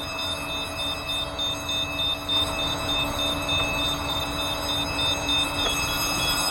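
Fire suppression system alarm panel sounding a rapid, high-pitched pulsing beep over a steady machinery rumble during a system test. Near the end the pulsing gives way to a slightly lower tone.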